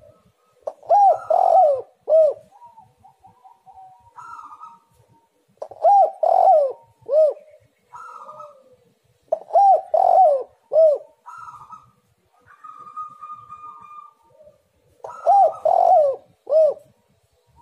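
Spotted dove cooing: four phrases a few seconds apart, each a quick run of rounded coos ending on a separate last note.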